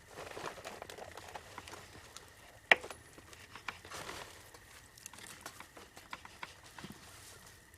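Wood fire crackling with scattered small pops, and one sharp louder pop a little under three seconds in.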